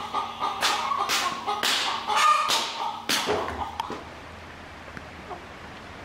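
Chickens squawking and clucking as one is shooed out, with about five loud, sharp squawks in the first three seconds. It turns quieter from about four seconds in.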